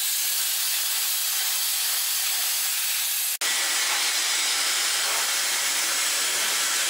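Hand-held hair dryer blowing on wet hair: a steady, airy hiss that breaks off for an instant about halfway through.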